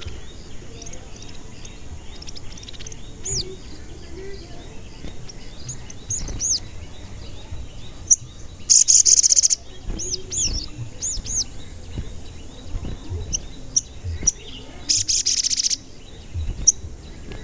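Sogon songbird calling: repeated short, high, arching chirps of its "cuit cuit" call. About 9 and 15 seconds in there are two loud, harsh buzzing calls, each under a second long.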